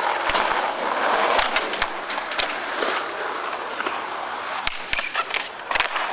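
Skateboard wheels rolling on rough concrete, a steady gritty rumble, with several sharp clacks of the board, most of them in the second half.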